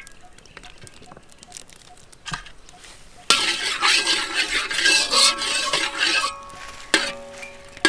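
A utensil stirring and scraping in a large metal wok, starting suddenly about three seconds in and running loudly for about three seconds, followed by a single clink.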